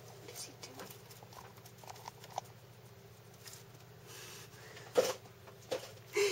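Small pet animal moving about in its wire cage: faint scattered scratching and rustling in the bedding, with a few louder sharp clicks and knocks near the end.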